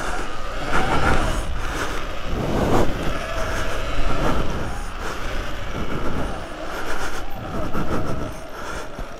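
Electric off-road motorbike's motor whining, its pitch rising and falling with the throttle as it is ridden over dirt whoops, over the rumble of tyres on dirt, with a few knocks from the bumps.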